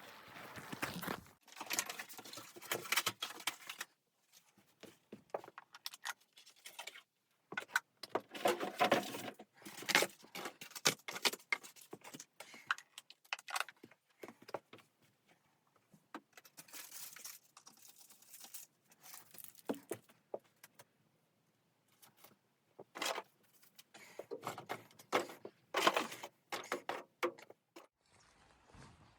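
Bursts of small clinks, rattles and rustles from objects being handled, in several spells with short quiet gaps between.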